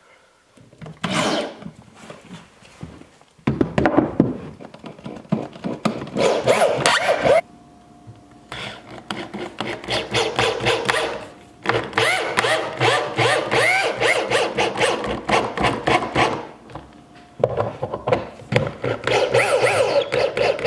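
A corded DeWalt drill drives long screws into a wooden corbel in four runs of a few seconds each, with short pauses between them. The motor whirs, and the screws rasp and click as they bite into the wood.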